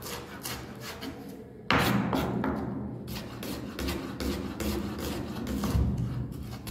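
Chef's knife chopping fast on a wooden cutting board, even strokes about four a second, shredding cabbage and slicing red onion. Background music plays under it, and about two seconds in a louder sound cuts in suddenly and holds.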